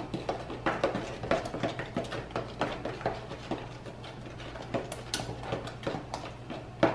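Metal spoons stirring and scraping through a watery glue-and-water slime mixture in a plastic tub, making a steady run of irregular small clicks and scrapes. The mixture is beginning to clump into slime.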